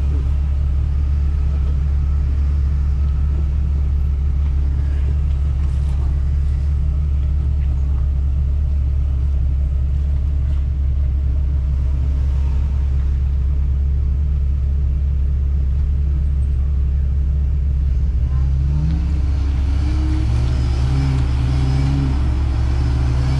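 Off-road Jeep's engine running with a steady low drone. In the last few seconds the engine note steps up and down in pitch as the throttle changes.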